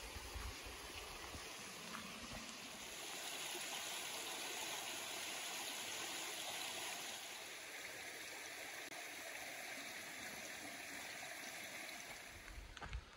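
A small forest stream running, a steady hiss of flowing water that is a little louder in the middle and fades near the end.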